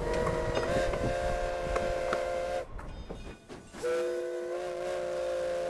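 Steam locomotive's whistle sounding a chord of several notes in two long blasts: the first fades out about two and a half seconds in, and the second starts after a short gap and is still sounding at the end. Under the first blast, the wheels rumble and clack over the rails.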